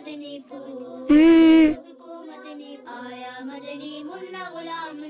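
Wordless vocal background music, voices singing or humming a chant-like melody. About a second in comes one short, much louder pitched vocal sound.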